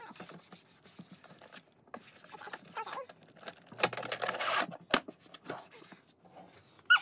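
Handling noises in a drawer: makeup palettes clicking and knocking as they are shifted, with a loud rustling rub a bit under a second long about four seconds in as a wipe is rubbed over the drawer's bottom, then a sharp click.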